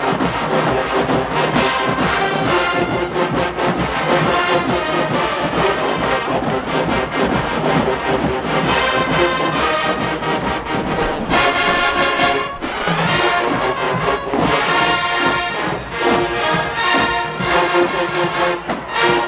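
Brass-led marching band playing a tune, with trombones and trumpets to the fore.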